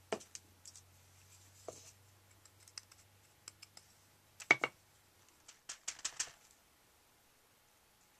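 A stencil brush dabbing red acrylic paint in a small plastic palette and tapping it onto paper through a stencil: scattered light taps and clicks, the loudest about four and a half seconds in and a quick run of taps around six seconds.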